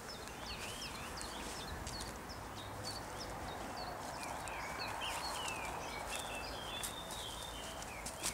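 Woodland birdsong: several birds giving quick chirps and warbling phrases throughout, over a steady rustle of footsteps along a leaf-littered path.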